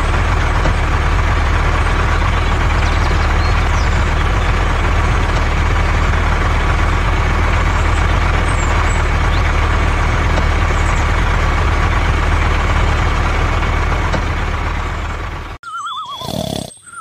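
A tractor engine running steadily with a low rumble, which cuts off suddenly about a second and a half before the end, followed by a short falling sound effect.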